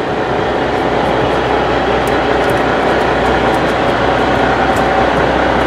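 A trawler's engine running with a loud, steady drone.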